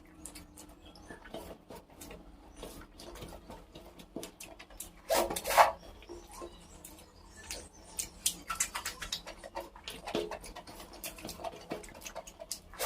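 Close-up eating sounds: many soft clicks, smacks and rustles of food being handled and chewed, with one louder burst about five seconds in and a busier run of clicks from about eight seconds.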